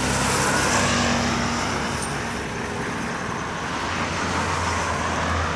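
Highway traffic passing close by, one vehicle swelling past about a second in, over a steady low engine hum.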